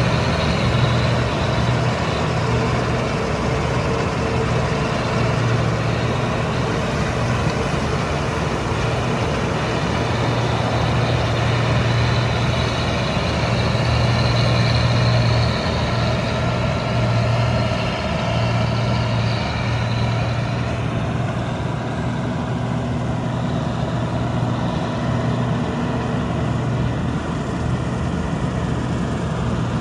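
Combine harvester's diesel engine and machinery running steadily at an even speed, a constant deep hum under a dense mechanical clatter.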